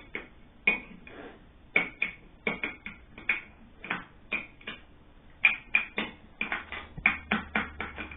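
Irregular light clicks and taps of small plastic containers and utensils knocking against a bowl, about two or three a second and coming quicker toward the end, as glitter is added to slime.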